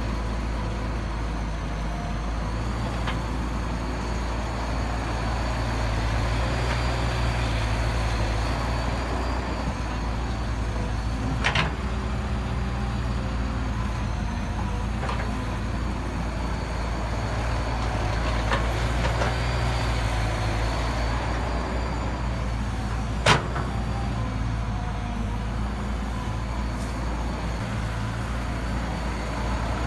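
Caterpillar 312B hydraulic excavator's diesel engine running steadily under load as it digs soil and loads a dump truck, its sound swelling and easing with the work. Two sharp knocks stand out, one about eleven seconds in and a louder one about twenty-three seconds in.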